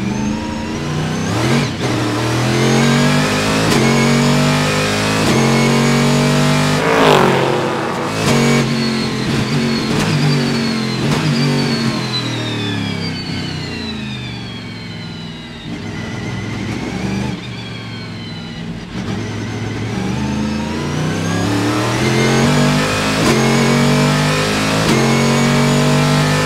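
Panoz Esperante GTR-1's 6-litre V8 heard from inside the cockpit, accelerating hard with repeated upshifts. About seven seconds in the engine note drops sharply, then falls further and quietens as the car slows, before it climbs through the gears again in the last several seconds.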